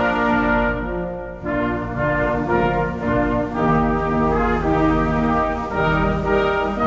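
Slow brass music: sustained chords held for about a second each before moving to the next.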